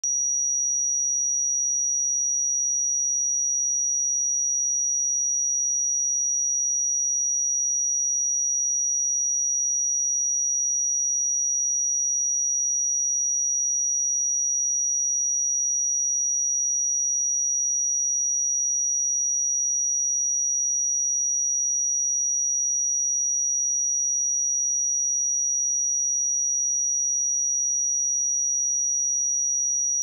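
A steady, high-pitched 5781 Hz sine-wave test tone: a single pure note held at constant pitch and level.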